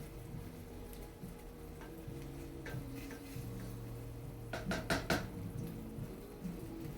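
Kitchenware clattering: a few light clinks, then a quick run of four or five sharp clinks about two-thirds of the way through.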